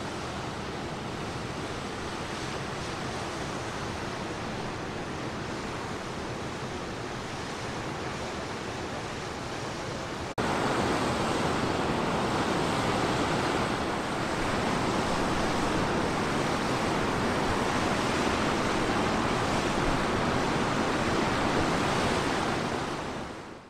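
Steady rush of water pouring from a reservoir dam's outlet into the river below, markedly louder after a sudden cut about ten seconds in, then fading out at the end.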